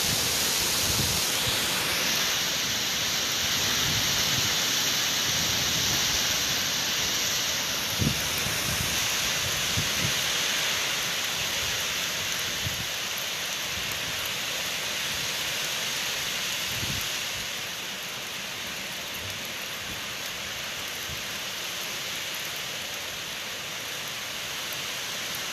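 Heavy rain pouring steadily in a gusty thunderstorm line, with a few low thumps of wind buffeting the microphone. The downpour eases slightly in the last third.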